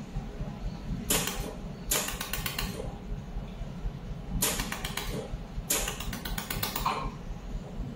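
Pulsed laser of a 200W mold laser welding machine firing on the welding wire and steel, heard as four bursts of rapid ticking, each a fraction of a second to about a second long. A steady low hum runs underneath.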